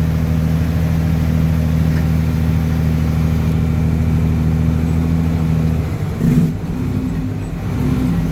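Truck engine running steadily under way. About six seconds in, the steady engine note changes and becomes uneven.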